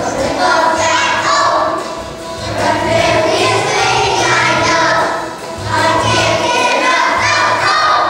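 Children's choir singing a song, in phrases of two to three seconds with short dips between them.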